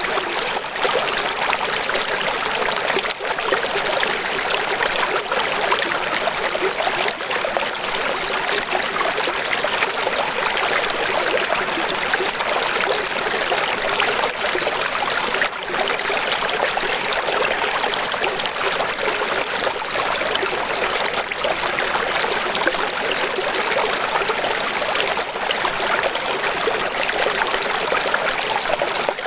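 Running water splashing and rushing steadily, with no breaks or swells.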